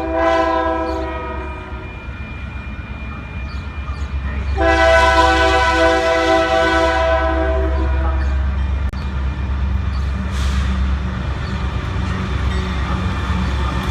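Union Pacific freight locomotive's air horn: one blast trailing off about a second and a half in, then a longer, louder blast from about four and a half to eight seconds, over the steady low rumble of the passing freight train.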